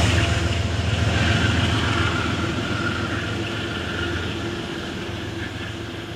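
A Metro-North GE Genesis P32AC-DM locomotive at the rear of a departing push-pull train. The low drone of the locomotive and the rumble of the train fade steadily as it pulls away.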